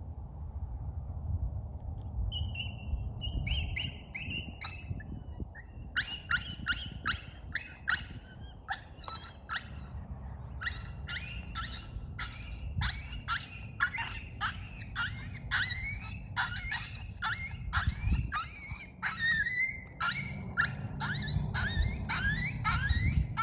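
Coyotes yipping and howling: a few short calls about two seconds in, then from about six seconds on a dense chorus of rapid yips and wavering howls.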